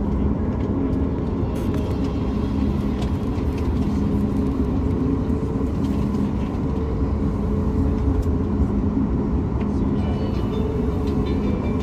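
Cabin noise of a Boeing 737 MAX 8 taxiing: a steady low rumble from its CFM LEAP-1B engines at idle, the airframe and the air system, with a faint low hum that comes and goes.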